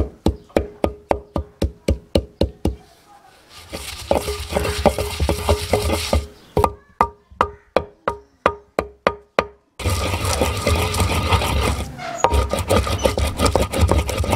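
Wooden pestle pounding and grinding mint leaves in a terracotta clay bowl. It strikes about four times a second for the first three seconds, then grinds with a continuous scraping rub, strikes again for about three seconds from six seconds in, then grinds again from about ten seconds in.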